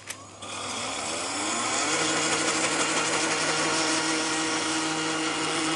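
Countertop blender motor starting up about half a second in, rising in pitch as it spins up, then running steadily as it blends a liquid mixture of beetroot juice, eggs and cream.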